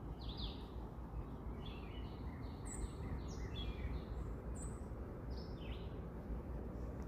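Songbirds chirping: a series of short, quick chirps and calls, several overlapping, over a steady low outdoor rumble.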